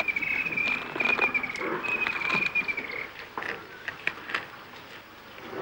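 Scattered cracks and snaps of bark and wood as elephants tear at acacia trees, over a high wavering trill that stops about three seconds in.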